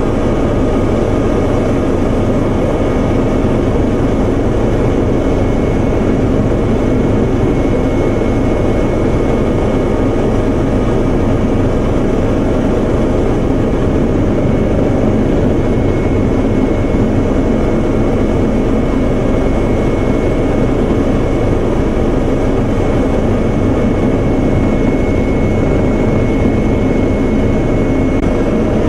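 Steady cabin noise of a helicopter in flight, heard from inside the cabin: a constant engine and rotor drone with a faint, thin high whine running through it.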